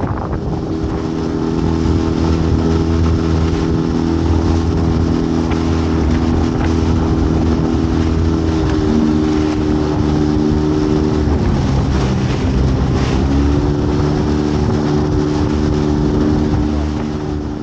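Small fishing boat's engine running steadily; its speed eases off about halfway through, drops lower for a moment, then picks back up.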